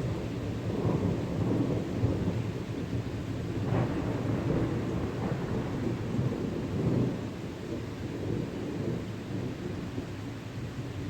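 Thunder rumbling: a long, low roll that swells in the middle and eases off over the last few seconds.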